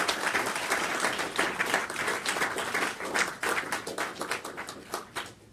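Audience applauding, a dense patter of many hands clapping that thins and fades out near the end.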